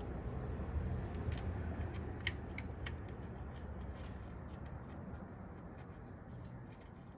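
Light, scattered clicks and clinks of hand tools and engine parts being handled, over a low steady rumble that fades slowly.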